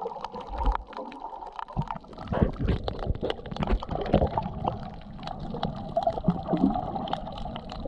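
Underwater water noise heard through a camera's waterproof housing: uneven gurgling and sloshing with many sharp clicks and crackles, busier from about two seconds in.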